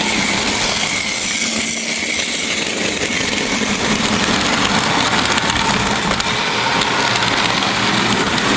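Märklin model trains running on the layout: the steady whir of their small electric motors with the wheels clattering over the track.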